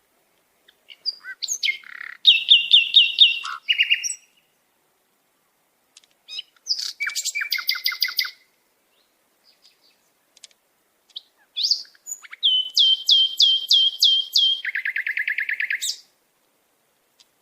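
A sparrow singing three song phrases with pauses between them, each a run of quick repeated notes; the last and longest ends in a lower trill.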